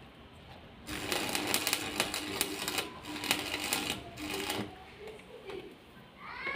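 Electric arc welding on an iron window grille: the arc crackles and sputters in two spells of about two seconds each, with a steady hum under the crackle and short pauses between welds.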